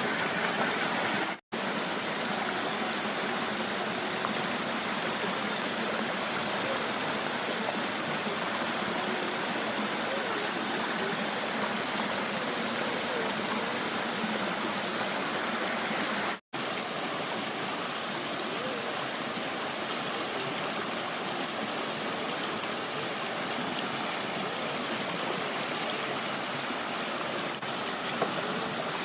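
Stream water rushing steadily, a constant even wash of flowing water. It cuts out for an instant twice.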